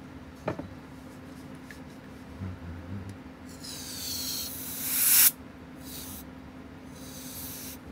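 Three blasts of air from an air blower nozzle, blowing dust off a Seiko 7A28 quartz chronograph movement: one long hiss that grows louder and cuts off sharply, then two shorter, fainter ones. A light click comes about half a second in.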